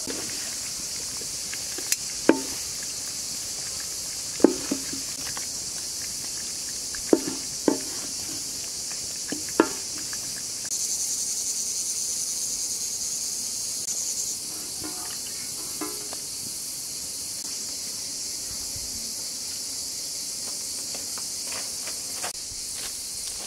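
Wooden spatula clacking sharply against a metal frying pan about five times while vegetables are stirred, over a steady chorus of crickets or other insects. Past the middle, a louder high hiss runs for about three and a half seconds.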